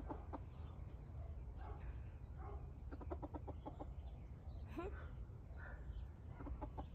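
Chicken clucking softly: a quick run of short clucks about three seconds in and a few more single clucks later, over a steady low rumble.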